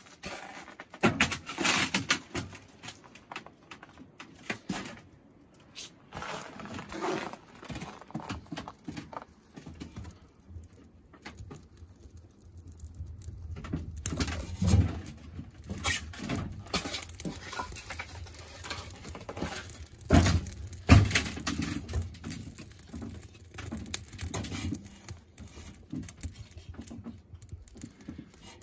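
Thin split kindling sticks being laid into a metal wood stove's firebox over burning tinder: scattered light clatters and knocks of wood on wood and metal, with a few heavier knocks about fifteen and twenty seconds in.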